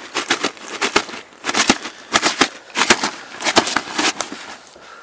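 Grass carp thrashing in a landing net over an unhooking cradle: a rapid, irregular run of slaps and thumps with rustling of the net mesh and cradle fabric, easing briefly about a second in and again near the end.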